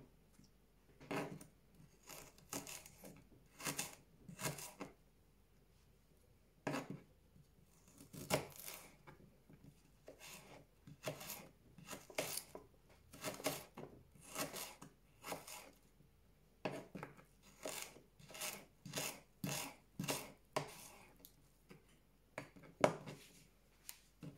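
Kitchen knife slicing fresh ginger on a plastic cutting board: a run of separate, sharp knife strokes against the board, uneven in pace, with short pauses between runs.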